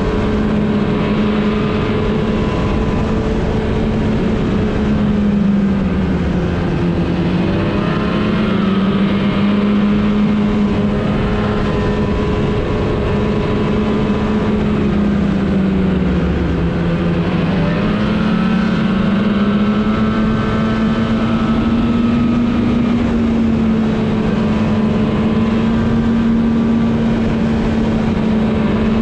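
Snowmobile engine running steadily at trail speed over a constant rush of noise. Its pitch drops briefly twice, around 6 seconds in and again around 16 seconds, as the throttle eases, then climbs back up.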